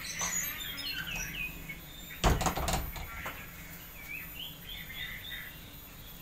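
Small birds chirping in short, falling notes, and about two seconds in a wooden double door is pushed shut with a short run of knocks, the loudest sound.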